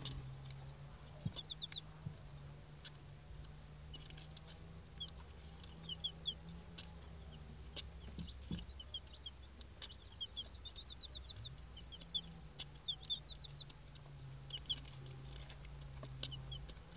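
Silver Laced Wyandotte chicks peeping: short, high chirps, often in quick runs of two to four, scattered throughout. A steady low hum and a few faint clicks sit beneath them.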